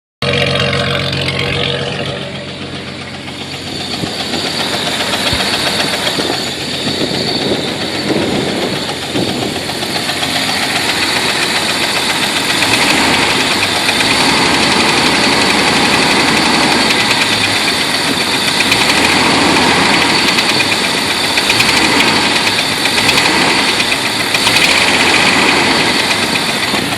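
Jeep Wrangler engine with a straight-piped exhaust, running loud. It has a knocking noise whose cause the owner doesn't know.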